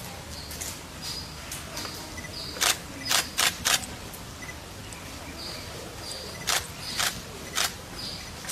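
Quiet ambience with brief high chirps recurring every second or so. Sharp short hissing bursts cut through it: four in quick succession about three seconds in, and three more between six and eight seconds.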